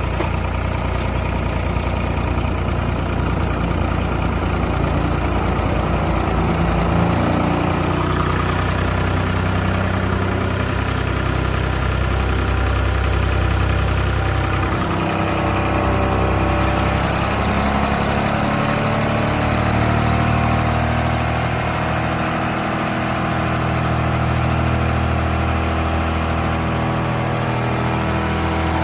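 Wood chipper machine running steadily under engine power, its pitch drifting up and down slightly.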